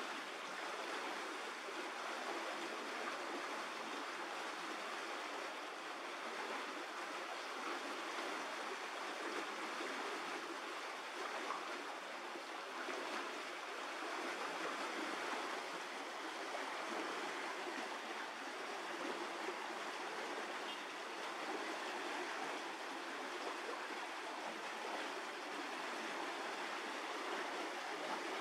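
Steady, even rushing noise with no distinct events, like running water or an outdoor ambience bed.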